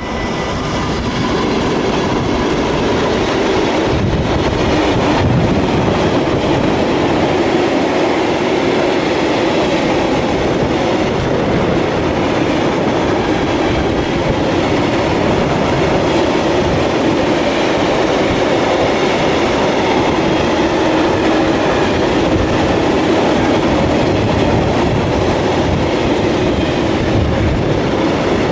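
Freight train of hopper wagons passing at speed, with a steady rolling rumble of wheels on rail.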